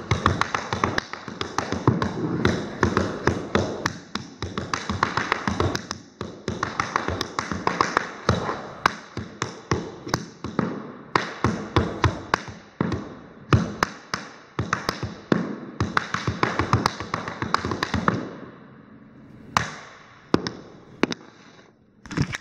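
Tap shoes striking a hardwood studio floor in fast, dense improvised tap rhythms, with no music. After about eighteen seconds the taps thin out to a few scattered strikes.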